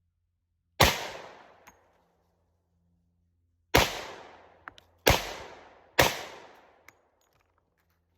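Four shots from a 10mm Glock 20 pistol mounted in an MCK carbine conversion kit: one, a pause of about three seconds, then three in quicker succession, each followed by a trailing echo.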